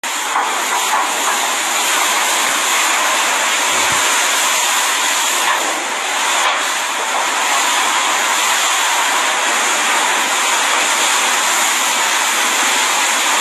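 Hurricane-force wind blowing in a loud, unbroken rush of noise.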